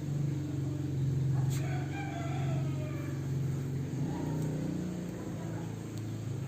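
A rooster crows once, a call of about a second and a half that falls away at the end, over a steady low motor hum that shifts pitch about four seconds in.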